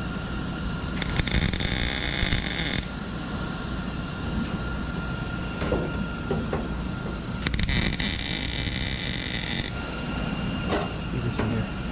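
Wire-feed (MIG) welder arc crackling in two bursts of about two seconds each, roughly six seconds apart, as tack welds are laid on a steel patch panel.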